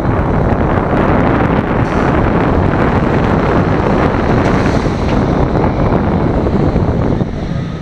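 Wind buffeting a front-seat rider's microphone over the rumble of a Bolliger & Mabillard giga coaster train's wheels running on the steel track through a curve. The rush drops off noticeably near the end.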